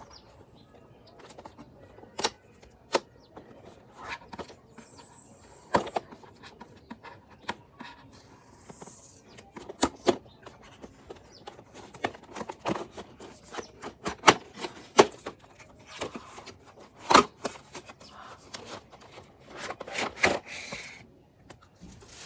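Headphones being unpacked from their box: scattered clicks, taps and knocks of cardboard and plastic packaging being handled, with a few short rustles of wrapping.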